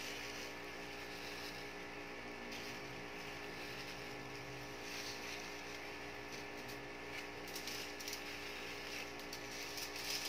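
A steady electrical hum, with a few faint crinkles of aluminium foil in the second half as the foil is handled.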